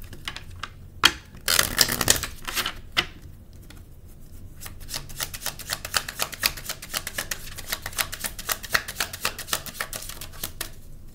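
A tarot deck being shuffled by hand. A short riffle comes about two seconds in, then a long run of quick, closely spaced card clicks from about four seconds on.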